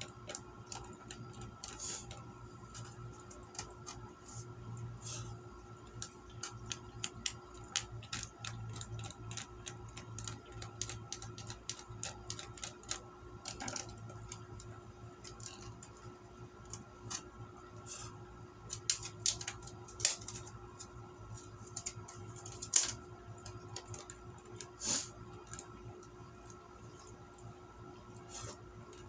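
Eating sounds: irregular light clicks and taps of wooden chopsticks against a clear plastic food pack, with one sharper click a little past two-thirds of the way through, over a steady hum.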